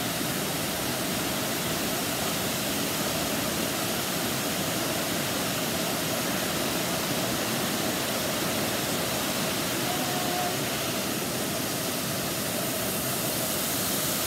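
Steady rushing of a tall waterfall cascading down a rock face, heard close to its base.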